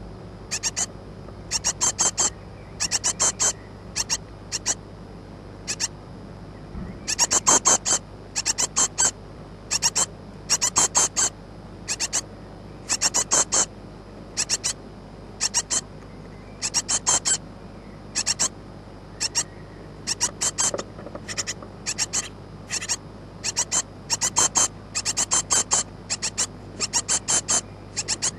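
Great tit nestlings about two weeks old giving high-pitched begging calls, in quick clusters of a few notes every second or two, over a steady low hum.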